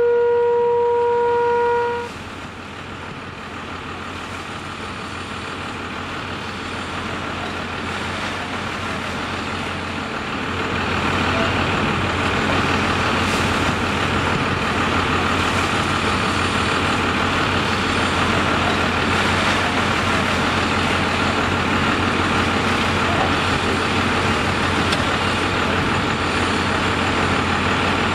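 A held electronic chime from an intro jingle ends about two seconds in. It gives way to a parked fire truck's engine running steadily, which gets louder about ten seconds in.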